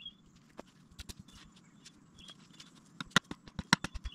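Dry firewood sticks knocking and clacking against each other as they are handled, a few sharp clicks at first, then a quick run of them from about three seconds in.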